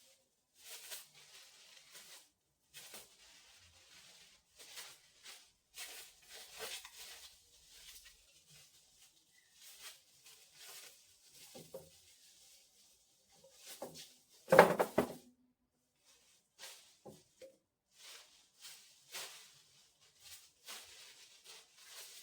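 Household handling noises: short, irregular rustles and scrapes of things being moved and wiped, with one loud clunk about fifteen seconds in.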